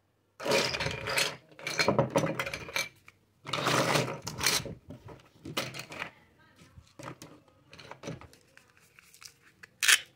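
Plastic toy kitchen pieces clattering and rustling as hands rummage through the pile, loudest in the first half, then scattered light clicks. Near the end comes a short sharp rasp as a toy cutting fruit is pulled into its two halves.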